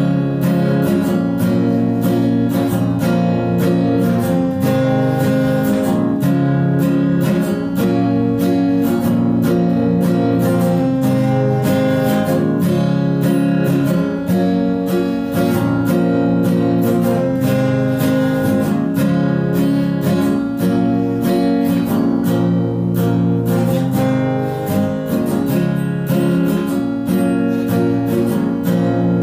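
Background music led by a strummed acoustic guitar, with a steady beat.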